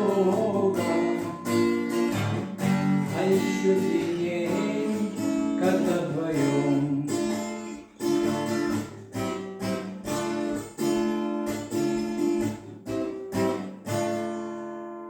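Acoustic guitar strumming chords in a steady rhythm, ending on a last chord that rings out and fades away.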